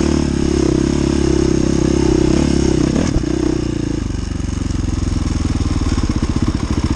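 Dirt bike engine running at steady revs, then dropping to a lumpy idle with a distinct pulsing beat about four seconds in as the bike pulls up. A single sharp knock comes just before the revs drop.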